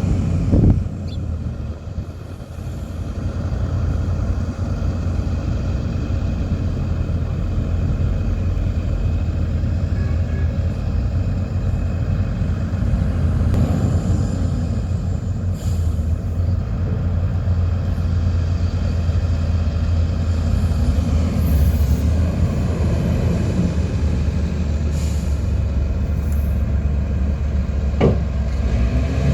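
Heavy diesel engines of earthmoving machinery (a bulldozer and dump trucks) running under load with a steady low drone. The level dips briefly about a second in and then comes back up. There is a sharp knock just under a second in and another near the end.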